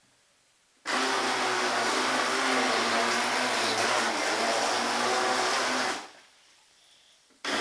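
Electric RC speedboat motor and propeller running at full throttle with a steady whirr. It starts suddenly about a second in, holds for about five seconds, cuts off, then starts again at the very end.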